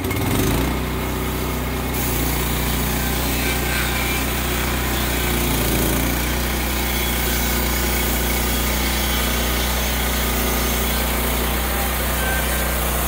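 Wood-Mizer LX25 portable band sawmill running steadily, its engine under throttle and the band blade turning as the saw head is pushed toward the log. A higher hiss joins the engine sound about two seconds in.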